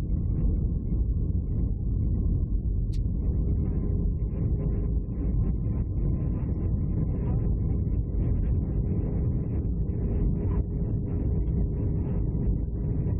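Airliner cabin noise on the landing approach: a steady low rumble of engines and airflow with a faint steady hum. A single brief click about three seconds in.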